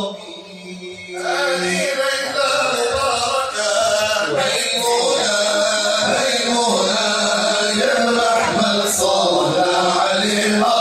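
Male voices chanting Islamic praise songs (madih) together, over a steady low held tone. The chanting swells in about a second in and carries on steadily.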